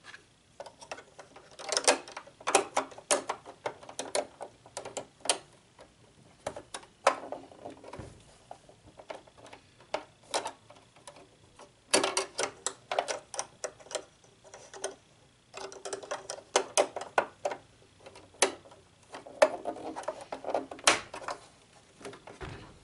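Clicking and light rattling of a Brother LX3817 sewing machine's needle and bobbin-area parts being handled by hand, in irregular runs of quick clicks with short pauses between.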